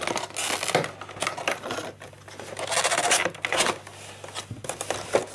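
Cardboard of a small advent calendar box being handled and opened by hand: scraping, rustling and light clicks in a few short bursts.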